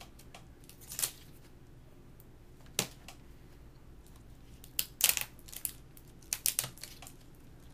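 Scattered small clicks and taps of laptop screen parts being handled and pulled apart, with a quick cluster of clicks about two-thirds of the way through.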